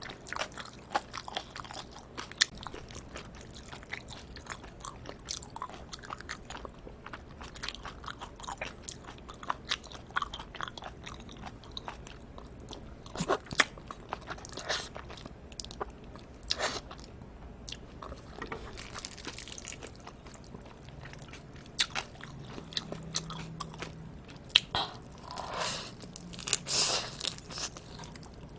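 Close-miked chewing and biting while eating cold bibim noodles with live octopus: a dense run of short, wet, sticky mouth clicks. A few longer, louder wet sounds come near the end.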